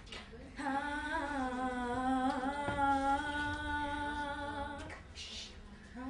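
A woman's voice humming one long wordless note, with a slight waver, starting about half a second in and fading out just before five seconds. A short breathy hiss follows, and a new hummed note begins right at the end.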